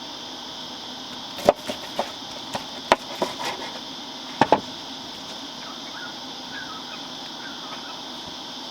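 A knife chopping on a board in about eight sharp knocks, clustered between about one and a half and four and a half seconds in, over a steady high drone of insects.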